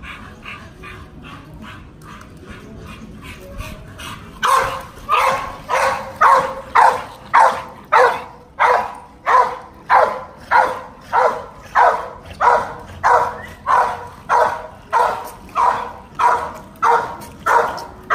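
Pit bull barking over and over at a steady pace, about two barks a second, loud from about four seconds in; before that, fainter and quicker barks.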